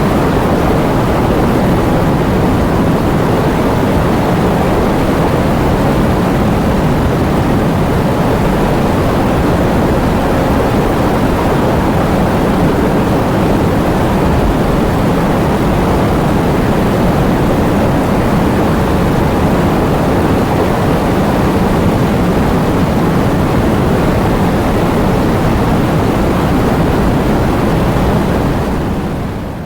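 Heavy rain with strong wind, a loud steady roar that fades out near the end.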